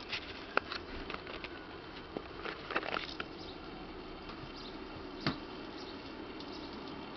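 Light scattered taps and rustles from a kitten pouncing about on a fleece blanket as a teaser wand is moved over it, with a sharper click about half a second in and another about five seconds in.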